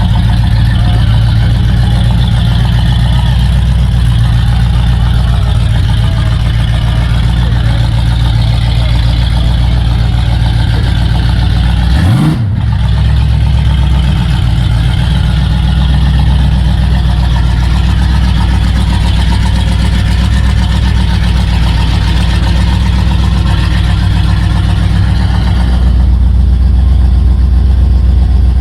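Car engine and road noise during a test drive, a steady low drone. About twelve seconds in the drone briefly breaks and its pitch swings, and near the end it turns slightly louder and deeper.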